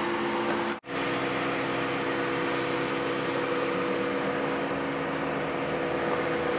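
ARB dual air compressor running steadily, a constant hum, airing up a tire through a hose and air chuck. There is a brief break just under a second in.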